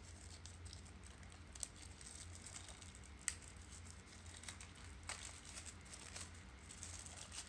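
Faint crinkling of a clear plastic packaging wrapper as it is handled and pulled open, with scattered soft crackles and one sharper click about three seconds in.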